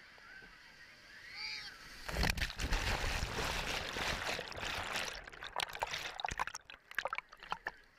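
Wave-pool surf wave breaking over a GoPro camera at the water surface: a loud rushing wash of water sets in about two seconds in. Then the camera is underwater, with bubbling and splashing crackles.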